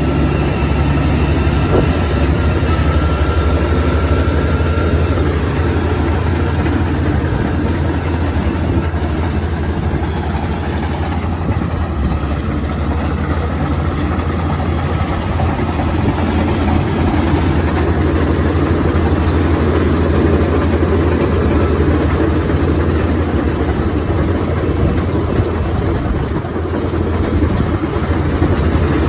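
Kubota rice combine harvester running steadily, a continuous heavy engine hum.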